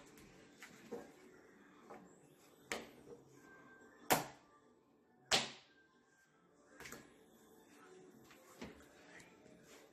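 Homemade glitter slime being swung and slapped down against a glass tabletop: a few short, wet smacks, two much louder ones a little past the middle, among fainter knocks and handling noises.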